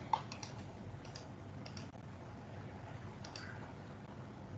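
A few scattered computer keyboard keystrokes, short sharp clicks at uneven intervals, some in quick pairs.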